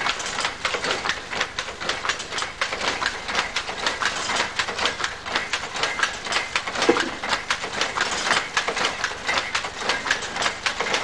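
Tweed weaving loom running, a rapid, steady mechanical clatter of shuttle picks and the beater knocking up, several strokes a second.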